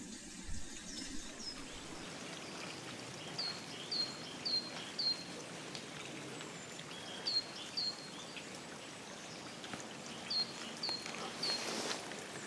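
A small songbird calling in short groups of high, down-slurred notes (four, then two, then three), over a steady hiss of trickling water.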